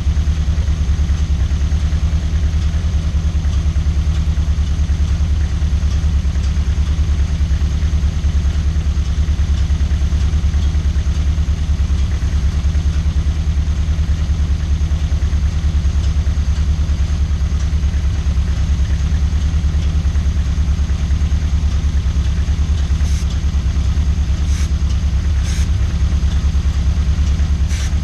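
Toyota 4A-GE 1.6-litre twin-cam 16-valve four-cylinder engine idling steadily. A few brief faint ticks sound near the end.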